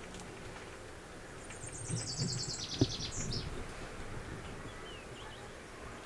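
A small bird singing one fast trill that falls in pitch, starting about a second and a half in and ending in a short flourish. A single sharp knock about halfway through, over faint handling rustle.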